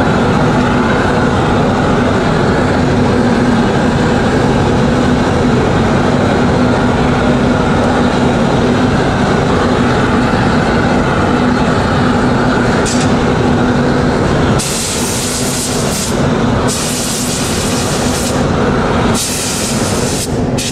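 Steady roar of glassworks furnaces and gas burners with a constant hum. From about two-thirds of the way in, three bursts of high hiss, each a second or so long, come in over it.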